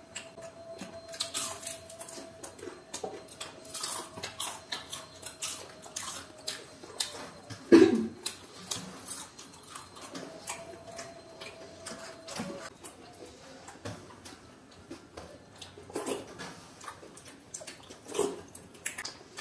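Close-up eating sounds: hands squishing and mixing watery fermented rice on steel plates, with chewing and lip smacks as a string of short wet clicks. One louder, sharper sound comes about eight seconds in.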